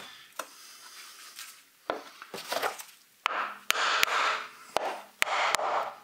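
Hammer striking a wood block held against the valve cover of a Mitsubishi 4B11 engine: a string of sharp knocks, the first about two seconds in, coming faster in the second half. The cover is being knocked loose where its original seal has stuck it to the cylinder head.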